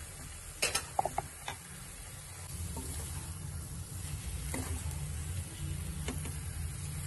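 Wooden spatula stirring potatoes and fenugreek leaves in a kadhai, knocking against the pan a few times near the start and now and then after, while the food sizzles faintly as it is stir-fried in the last minutes of cooking.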